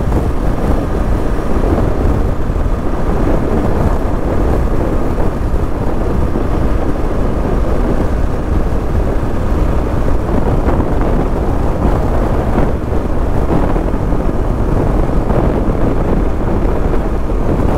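Wind buffeting a GoPro's microphone: a steady, loud rumble with no break.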